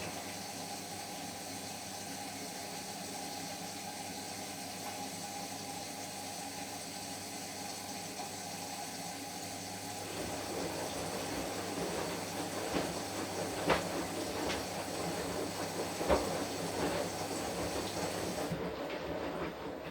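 Washing machine running: a steady motor hum with water swishing in the drum. About halfway through it grows a little louder and rougher, with scattered knocks.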